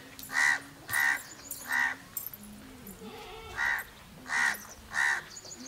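A crow cawing six times, short harsh caws in two runs of three with a pause of about a second and a half between.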